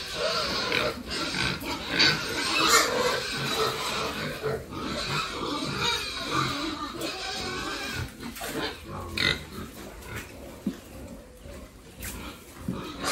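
Several domestic pigs grunting and squealing in a jumble of overlapping calls, with short knocks among them; quieter for a couple of seconds near the end.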